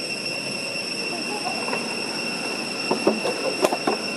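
Steady high-pitched drone of insects, with a short cluster of knocks and rustles about three seconds in.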